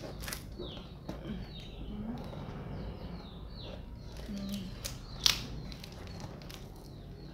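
A small bird chirping in the background, short falling chirps repeated about once a second, mixed with scattered clicks and crinkles of a parcel's wrapping being handled; one sharp click about five seconds in is the loudest sound.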